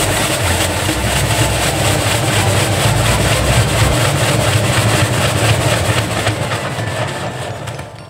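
Front-loading washing machine drum spinning at speed, with a low motor hum and a regular rhythmic beat from the turning drum. It winds down and gets quieter near the end.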